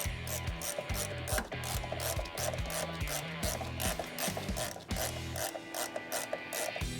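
Hand ratchet wrench clicking in quick, even runs as bolts are tightened down.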